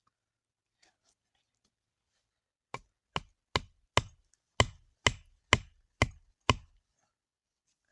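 A series of nine sharp strikes, about two a second, beginning near three seconds in.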